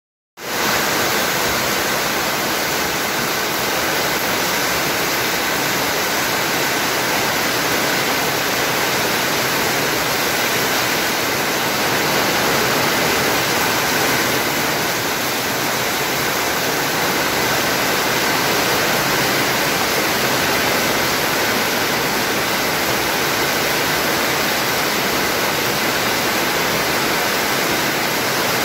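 Heavy rain pouring down, a loud, dense, even hiss that holds steady throughout.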